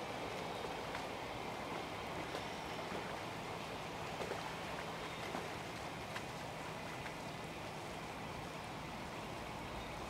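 Steady outdoor ambient noise, an even hiss with a few faint clicks.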